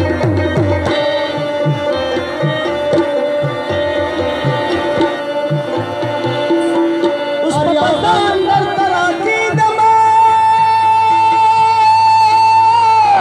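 Live Pashto folk music played loud: tabla drums beat a quick rhythm under a steady drone. About halfway through, a singer comes in with a wavering phrase and then holds one long high note almost to the end.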